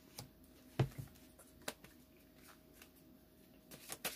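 Tarot deck shuffled by hand: scattered soft card clicks and slaps, one louder thump about a second in, and a quick run of card flicks near the end.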